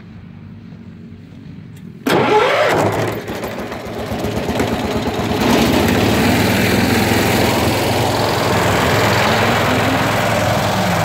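John Deere riding lawn tractor's small gasoline engine starting suddenly about two seconds in, then running steadily and a little louder from about five seconds in.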